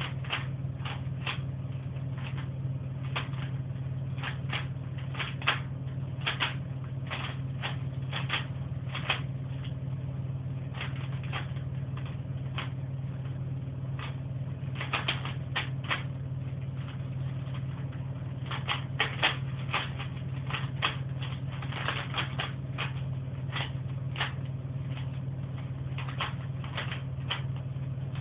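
Rubik's cube being turned by hand: irregular clicking of the plastic layers snapping round, often in quick runs of several turns, over a steady low hum.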